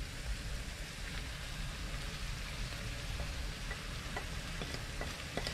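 Ground lamb and vegetables sizzling steadily in a frying pan, an even hiss, with a few light clicks near the end as a wooden spoon scrapes seasonings off a plate into the pan.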